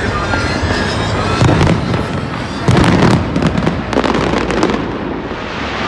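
Aerial fireworks exploding in a dense, continuous barrage: many sharp bangs and crackling bursts overlapping one another, with the heaviest bang a little under three seconds in.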